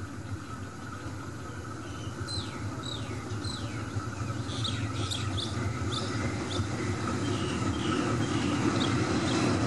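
Diesel engine of a GE CM22-7i diesel-electric locomotive (Cummins KTA-50L) running with a steady low rumble that grows louder as it approaches. Birds chirp over it, a string of short falling calls from about two seconds in.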